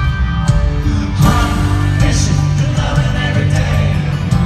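Live country music: a male singer performing with acoustic guitar and band, amplified through the concert sound system.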